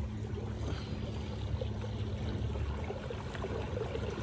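Water rushing and gurgling along the hull of a moving canoe, over a steady low hum from its electric motor.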